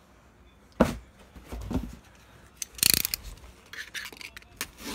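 A box cutter's blade slitting a cardboard mailer box: a sharp knock just under a second in, a few soft thuds, then a short loud rasping cut about three seconds in.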